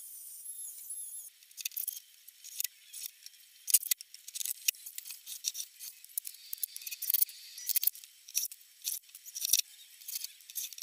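A steady high hiss for about the first second, then irregular light clicks, taps and small rattles from wooden boards and a cabinet frame being handled.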